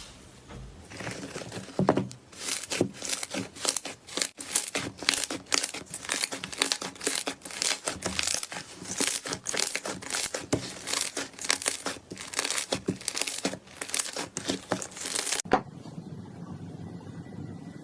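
Slime being squeezed and worked by hand: a dense, irregular run of crackling, popping squishes. It cuts off suddenly near the end, leaving a quieter steady background with a faint thin tone.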